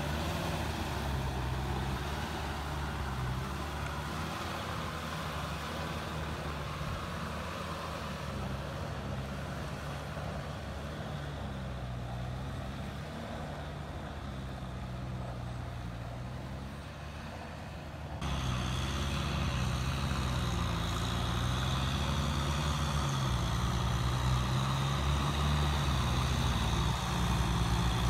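Kubota tractor diesel engines running steadily under load, dragging implements through flooded paddy mud. About two thirds of the way through, the engine sound suddenly becomes louder and closer.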